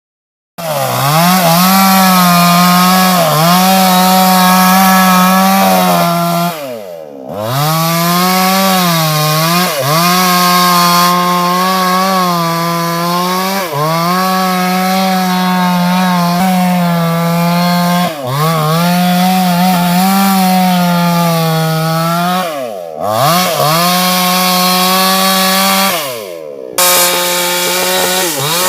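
Two-stroke chainsaw running near full throttle as it cuts into a large sengon trunk, its pitch sagging briefly under load every second or two. The sound breaks off sharply three times, and each time the engine's pitch falls just before and climbs again after.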